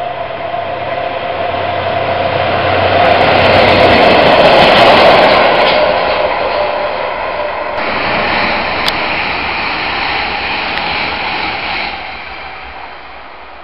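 A DB Class 365 diesel shunting locomotive hauling a works train runs past, its engine growing louder as it approaches and loudest as it goes by. About eight seconds in, the sound changes abruptly to a steadier rushing train noise, which falls away near the end.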